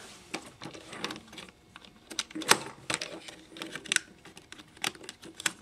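Irregular light clicks and taps of plastic parts as a Transformers Sideswipe toy car is handled and a small figure is pressed into its seat. A few clicks are sharper, about two and a half, four and five seconds in.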